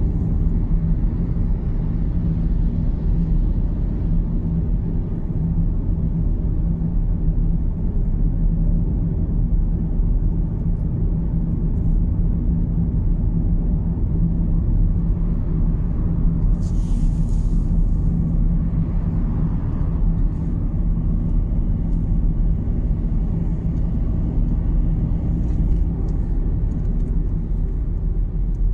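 Steady low road rumble inside the cabin of a Volkswagen Golf Mk7 driving at speed: tyre and engine noise. A brief hiss comes about seventeen seconds in.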